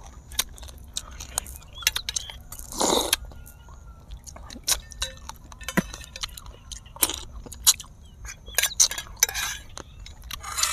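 Close-miked chewing and crunching of food, with many sharp clicks and clinks of a metal spoon against metal dishes and a louder noisy crunch about three seconds in.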